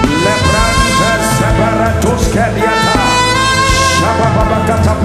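Worship band music under congregational prayer: a lead instrument plays held notes that slide between pitches, over a sustained low bass with a beat.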